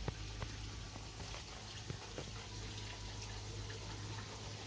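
G scale model locomotive running on garden track: a faint steady electric-motor hum with a few light clicks of wheels on the rails.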